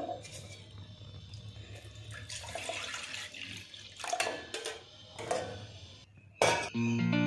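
Milk being poured from one steel vessel into a stainless steel saucepan, with a few sharp clinks of the steel pots against each other. Guitar music comes in near the end.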